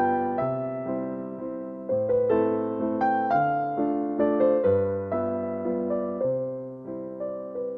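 Background piano music: a gentle melody of struck notes about two a second, each note dying away.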